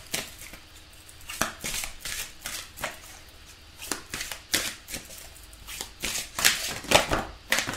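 A deck of Guardian Angels tarot cards being shuffled by hand, the cards slapping and rustling against each other in irregular strokes that grow louder toward the end.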